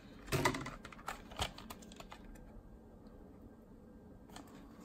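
Plastic CD jewel case being handled and opened: a cluster of clicks and rattles, then a few single clicks. It goes quieter for a couple of seconds before another small click near the end.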